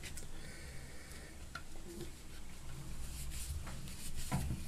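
Faint creaking and scraping of a screwdriver driving a stainless-steel screw into the plastic chain-anchor lug behind a basin tap, with a few small clicks, over a low steady hum.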